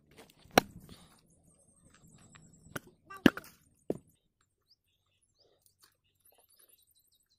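Machete chopping into a tender green coconut: four sharp blows in the first four seconds, the loudest about half a second in and just after three seconds.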